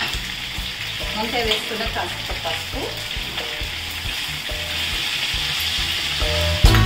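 Brinjal pieces frying in a generous amount of oil in a pan, a steady sizzle, with a few faint clinks and scrapes of a spoon partway through.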